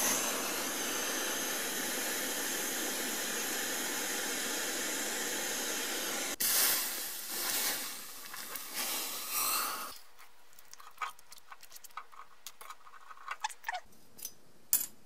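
Gas torch hissing steadily while heating a soldered joint on a copper cylinder, cutting off abruptly about six seconds in. Water is then poured on the hot joint and sizzles in uneven surges for a few seconds, followed by faint clicks and knocks as the part is handled.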